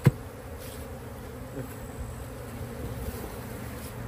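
Honeybees buzzing steadily in a low hum over an open hive as bees are shaken out of a nuc box. One sharp knock just after the start is the wooden box being knocked to dump the bees.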